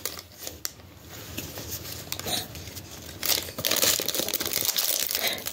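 Pokémon trading cards handled in the hands: scattered papery rustles and soft crinkles, louder in a few patches past the middle.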